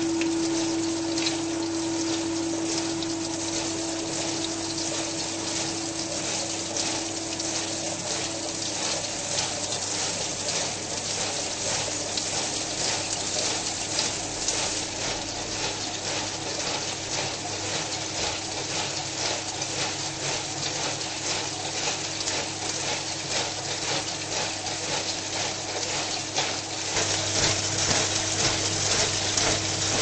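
Bosch countertop dishwasher running its wash: water sprayed from the rotating spray arm spatters steadily against the racks and stainless steel tub over the constant hum of the circulation pump, heard from inside the tub. The spray grows louder near the end.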